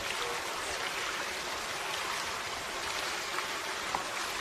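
Steady, even rushing noise like running water, with one faint click near the end.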